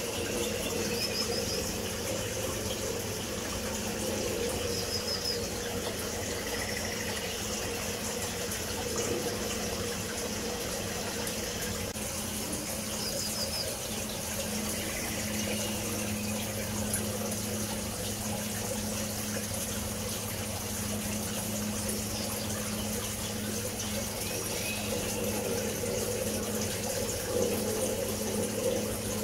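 Steady rush of running water with a low steady hum under it, and a few short, faint, high chirps now and then.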